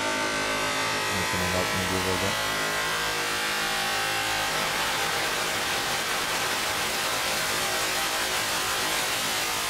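Digital audio feedback loop in Ableton Live, fed through Pedal, EQ Eight and Spectral Blur effects. At first it is a buzzing drone of many held tones, with a wavering low tone from about one to two seconds in. After about two and a half seconds the tones melt into a steady hiss-like wash of noise.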